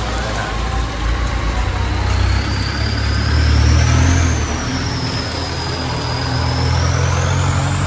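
A motor vehicle's engine rumbles close by, loudest about three to four seconds in, over the steady hiss of rain. A thin high whine rises, falls and rises again through it.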